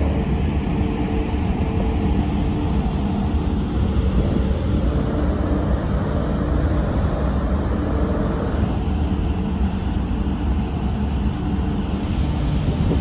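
Steady low rumble on the open deck of the GNV Excellent ferry: the ship's engines running, with wind on the microphone. A faint hum comes and goes through it.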